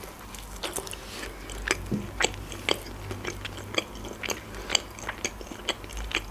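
Chewing a bite of pizza with the mouth closed: irregular crisp crunches and clicks, two or three a second.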